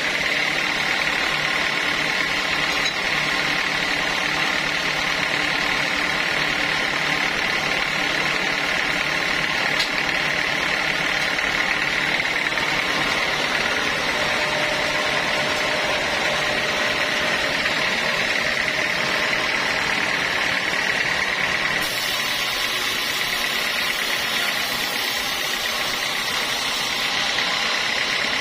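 Sawmill saw machinery running steadily, a constant mechanical drone with a steady high whine. A harsher, brighter hiss joins for several seconds about three quarters of the way through.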